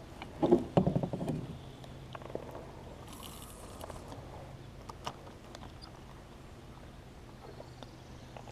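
A cluster of knocks and thuds on a small fishing boat about half a second to a second and a half in, then scattered small clicks and taps over a steady low hum.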